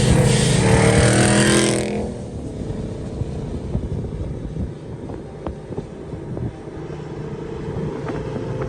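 Muscle car V8 engine revving loud with its pitch falling, then dropping off sharply about two seconds in to a lower, rough rumble.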